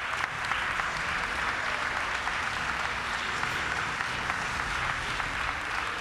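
A large audience clapping steadily, a dense and even applause.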